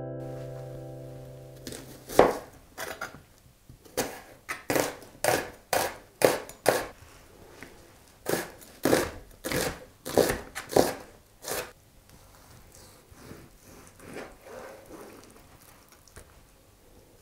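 Acoustic guitar music fading out, then a chef's knife chopping an onion on a plastic cutting board: sharp knocks about two a second in irregular runs. In the last few seconds, quieter knife strokes slicing through raw meat.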